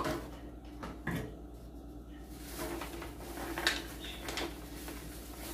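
Kitchen dishes and utensils being handled: a sharp clack at the start and another about a second later, then quieter clatter.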